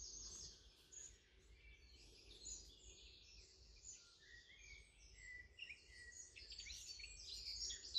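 Faint birdsong ambience: scattered short chirps from small birds, getting busier near the end, over a faint low hum.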